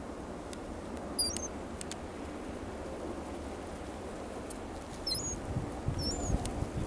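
Birds giving short, high squeaky chirps that bend in pitch, a few at a time about a second in and again near the end, over steady low wind noise on the microphone.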